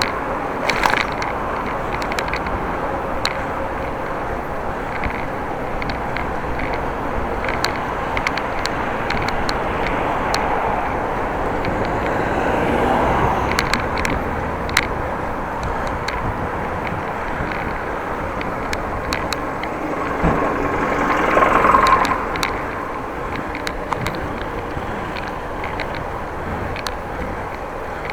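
Steady wind and road noise from riding a bicycle, with scattered small clicks and rattles. A motor vehicle passes about twelve seconds in and again louder around twenty-one seconds.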